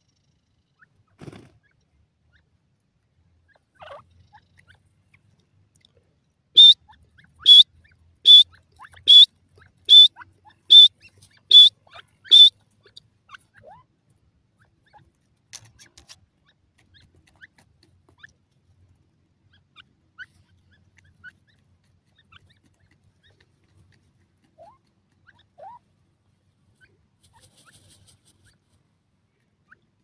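Grey francolin calling: a series of eight loud, sharp, high notes a little under a second apart, starting about seven seconds in. The rest is faint scattered ticks and scratches.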